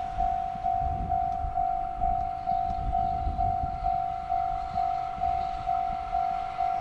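Level-crossing alarm ringing, a single-pitched electronic ding repeated about twice a second. Underneath is the low rumble of an approaching EF66 electric locomotive hauling container wagons.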